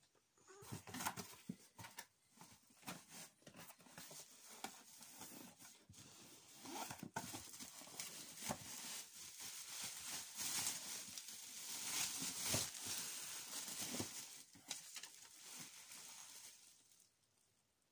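Cardboard box flaps opened, then bubble wrap and a plastic bag crinkling and rustling as a wrapped package is pulled from the box and unwrapped, with many small irregular clicks and crackles. The rustling is loudest in the second half and dies away near the end.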